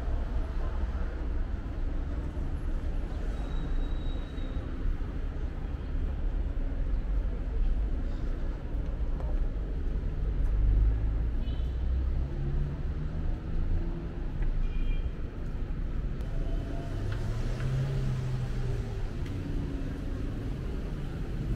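Street traffic on a city boulevard: cars passing as a continuous low rumble that swells loudest about ten seconds in.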